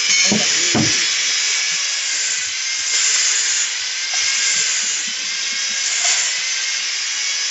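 A steady hiss with a faint high whine under it, and a few soft knocks as bottles are turned in the hand.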